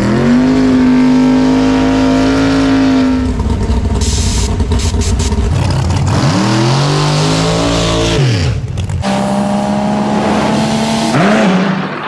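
Loud drag-racing car engines at high revs in a string of short cuts. One engine holds a steady high pitch for about three seconds, a noisy stretch follows, then an engine rises and falls in pitch around the middle, and another holds steady near the end.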